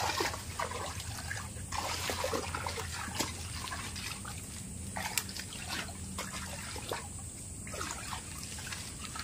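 Water trickling in a shallow muddy stream, with short intermittent splashes of feet wading through it.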